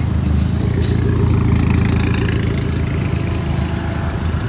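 Car engine idling steadily with a low, even note.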